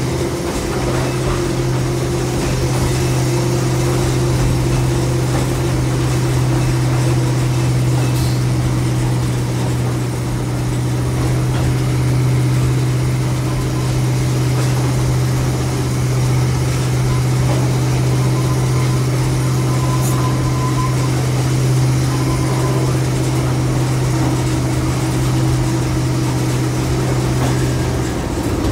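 Small locomotive engine running with a steady, unchanging low drone as the train rolls along.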